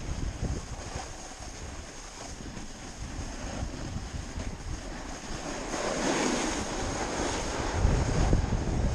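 Wind buffeting the microphone: a steady low rumble that grows louder over the last few seconds.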